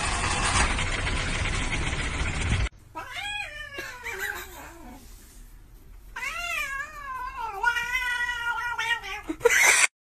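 A loud rushing noise cuts off abruptly a little under three seconds in. Then a house cat gives two long drawn-out meows: the first slides down in pitch, the second wavers and is held.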